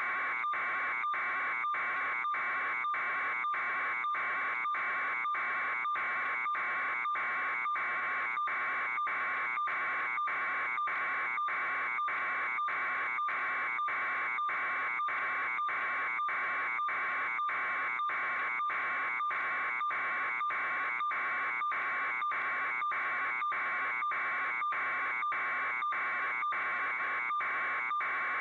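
A buzzing electronic alarm pulsing evenly a little under twice a second, unchanging throughout.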